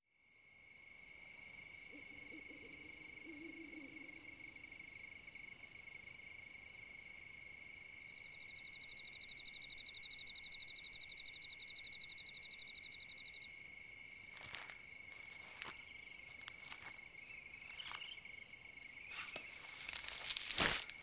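Night chorus of crickets and other insects: several steady high-pitched trills, one pulsing in a fast regular chirp that swells for a few seconds midway. From the middle on, scattered sharp clicks or rustles come in, the loudest just before the end.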